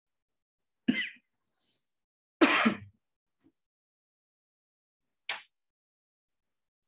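Three short breathy noises from a person at an open microphone, the middle one the longest and loudest, with dead silence between them as the call's audio cuts out.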